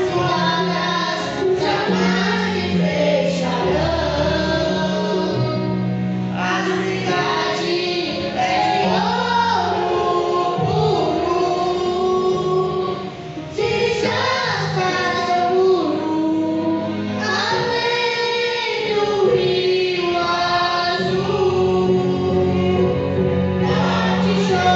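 A boy and a woman singing a gospel praise song in Portuguese into microphones, over an instrumental accompaniment with sustained low bass notes.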